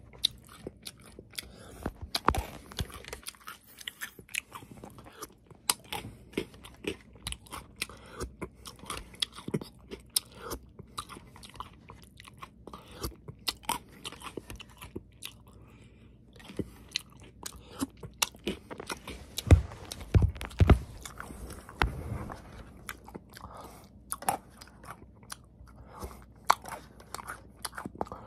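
Close-up chewing of yogurt with crunchy cereal balls, a steady run of sharp crackles and crunches, with a few heavier low thumps about twenty seconds in.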